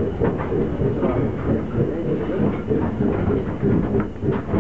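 Small heritage train rolling along the track, heard from inside its open-sided wooden carriage: a steady, rhythmic rumble and rattle of wheels and coachwork, with a few sharp clicks near the end.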